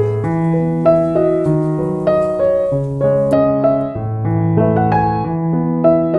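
Slow piano music: single sustained notes over a repeating low bass line, with a fresh note struck about every half second.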